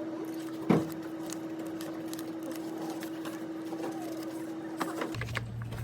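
Office room tone: a steady hum with scattered sharp clicks and one louder knock just under a second in. A little after five seconds the background cuts to a lower, deeper hum.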